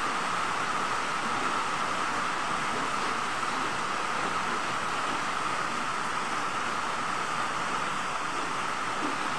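A steady, even hiss with no separate knocks or scrapes in it.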